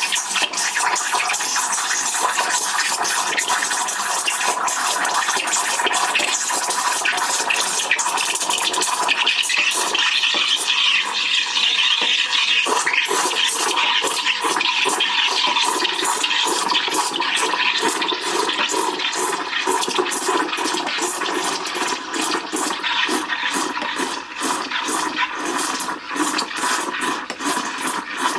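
Barsetto espresso machine's steam wand frothing milk: a loud steady hiss with a faint steady tone, breaking into rapid sputtering from about nine seconds in.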